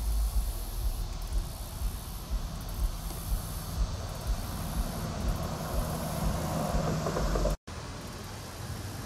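Wind buffeting the microphone with a steady hiss, and a low engine drone growing louder from about halfway in. The sound cuts out for an instant near the end and comes back as a quieter steady noise.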